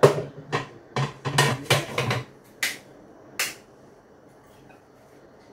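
A quick run of sharp clicks and knocks, about nine in three and a half seconds, the last two lighter and higher, as the parts of a Philips juicer are handled and set in place. The juicer's motor is not running.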